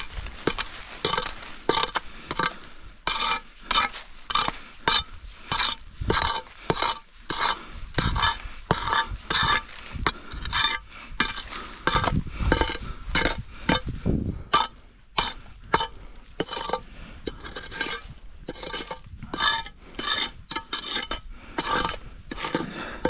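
A hand tool scraping and clinking against stone and earth in quick, irregular strokes, about one or two a second, as a buried stone box is dug open.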